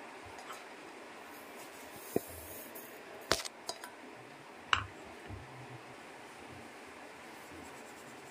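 A handful of short, sharp metallic clinks between about two and five seconds in: a stainless steel mesh sieve knocking against a steel bowl while rice flour is sifted. A faint steady hiss runs underneath.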